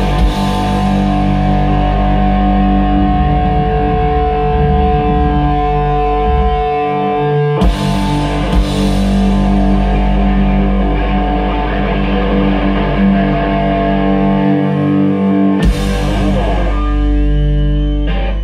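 Live rock band with loud distorted electric guitars holding long sustained chords, marked by two loud crashes about eight seconds apart. The music cuts off sharply at the very end as the song finishes.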